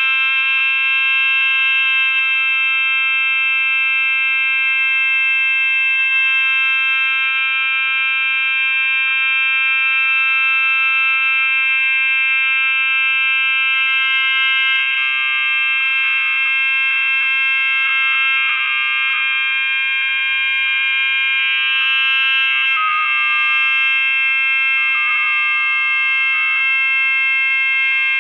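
Loud, continuous high-pitched electronic whine made of many stacked steady tones, the audio feedback of a video replaying its own sound through repeated screen recordings. From about halfway through it turns harsher and flutters.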